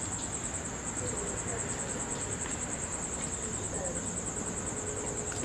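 A cricket trilling: a continuous high, fast-pulsing chirp that runs on without a break.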